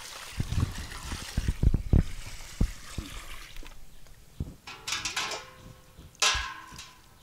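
Water poured from a bucket into a pot while hands slosh and squeeze raw chicken pieces in it. The pour stops about three and a half seconds in, followed by a few short splashes and drips as the pieces are lifted out of the water.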